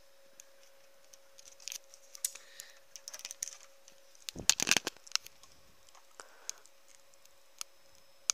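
Scattered small clicks and taps of hands handling multimeter test probes and wiring, with a louder burst of knocks and rustling about four and a half seconds in. A faint steady hum runs underneath.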